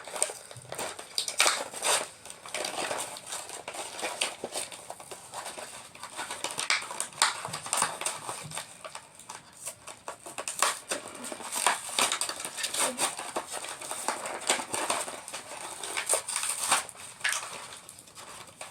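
Plastic and cardboard toy packaging crackling and rustling in a series of irregular clicks and crinkles as a pony figure is worked free of it.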